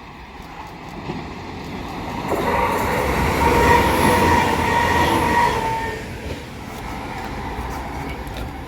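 A Class 197 diesel multiple unit passing at high speed: the rush of the train builds, peaks with a steady high whine from about two and a half to six seconds in, then eases as it goes by.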